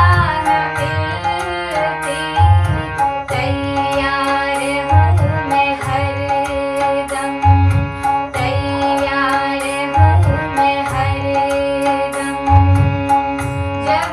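Indian devotional song music: tabla under a sustained melody, with a deep drum beat landing about every two and a half seconds.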